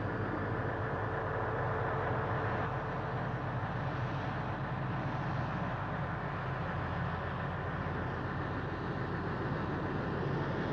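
Science-fiction spacecraft engine sound effect: a steady, even rumble with a low hum and no change in pitch.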